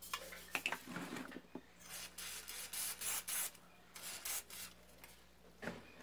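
Paper towel rubbing and scrubbing over the greasy metal joint of a desk fan's neck, wiping off old grease in a series of short, irregular strokes.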